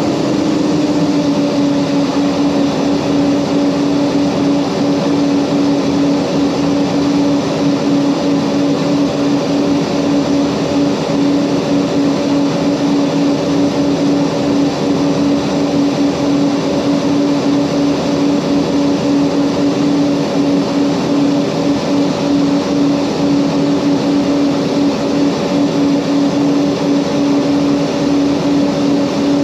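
Mitsubishi MU-2's twin Garrett TPE331 turboprop engines and propellers running with a steady, loud drone: a strong hum with a higher overtone, dipping slightly in pitch about a second in, then holding.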